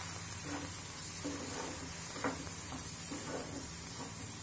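Spatula stirring and pressing mashed boiled elephant foot yam around a non-stick frying pan, with short soft scraping strokes, about seven of them at an uneven pace.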